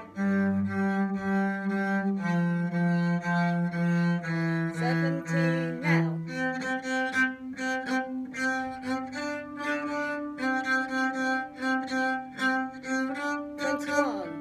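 Cello bowed, playing a simple line of held notes in separate, evenly spaced bow strokes: lower notes for the first half, then moving up to higher notes about halfway through.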